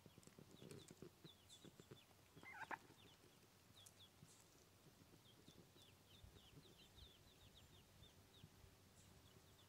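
Mallard ducklings peeping faintly: many short, high, falling peeps, several a second. About two and a half seconds in comes one louder, lower call from the mallard hen.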